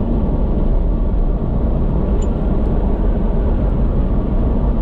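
Steady road noise of a moving car heard from inside the cabin: a low tyre-and-engine rumble at cruising speed.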